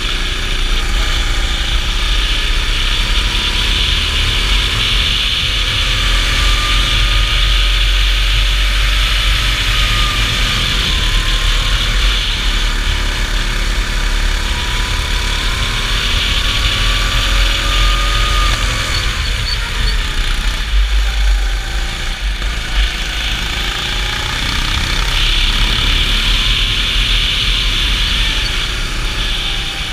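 Racing kart's engine heard from the driver's seat under hard driving, its revs climbing and falling again and again as it accelerates out of corners and backs off for the next. Underneath runs a steady low rumble and hiss.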